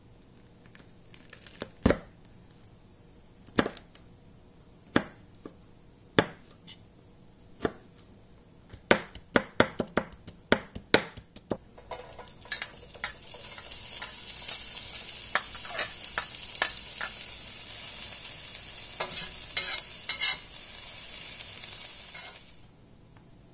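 A knife chopping spring onions on a plastic cutting board in separate strokes, coming faster after about nine seconds. About halfway, the chopped spring onions go into a hot stainless steel frying pan and sizzle steadily, with a few knocks mixed in, until the sizzle cuts off abruptly near the end.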